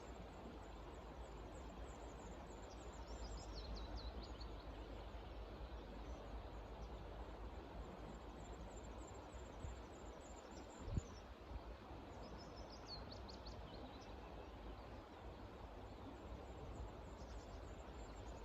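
Songbird singing outdoors: two descending, trilling phrases a little under ten seconds apart, with fainter high calls between, over a low steady background rumble. A single soft thump comes about halfway through.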